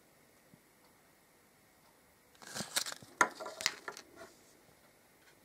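Hands handling small toys and packaging: a short flurry of clicks, taps and rustles starting about two and a half seconds in. It lasts under two seconds, with one sharper click in the middle.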